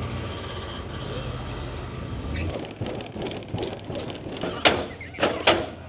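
Outdoor car show background sound: a low steady rumble for the first two and a half seconds, then people's voices and a few sharp knocks.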